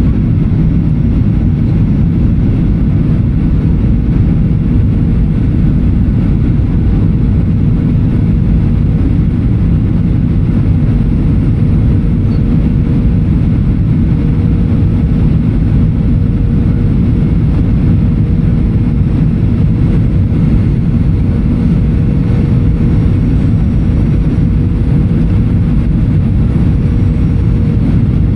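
Steady cabin noise inside a Boeing 737-800 in flight: a low, even rush of airflow and engine noise with a faint steady hum above it.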